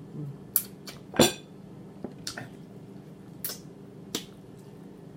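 Wet lip-smacking while chewing chicken: a string of sharp, moist clicks, the loudest a little over a second in.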